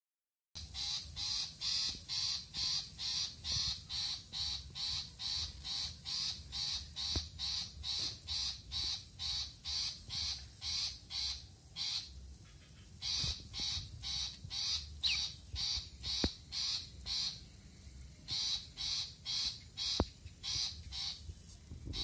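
Lovebird giving long runs of rapid, harsh repeated chirps, about three a second, broken by two short pauses.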